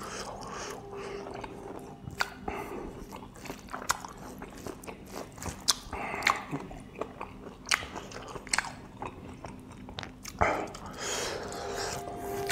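Close-miked chewing of a mouthful of pork and rice, with irregular wet smacks and sharp mouth clicks. Fingers work the rice and curry on the plate in between.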